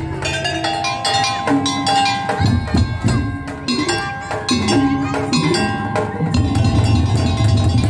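Madurese musik daul (tong-tong) ensemble playing: quick struck wooden and metal percussion over held melodic notes, with a heavier low drum part coming in partway through.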